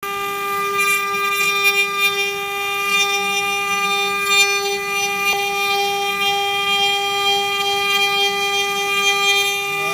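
Wood-carving CNC router's spindle running with a steady high-pitched whine, with faint scratchy cutting noise over it.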